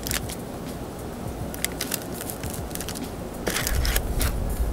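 Metal server cutting through a lemon bar's crust on parchment paper: scattered crackles and crunches, with a low rumble starting about three and a half seconds in.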